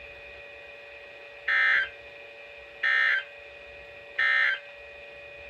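Emergency Alert System SAME end-of-message data bursts: three short buzzing digital tone bursts about a second apart, marking the end of the alert, over a faint steady hum.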